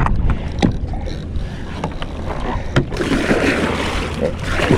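Water sloshing and splashing around a kayak, with a few sharp knocks in the first few seconds and a steady low rumble underneath.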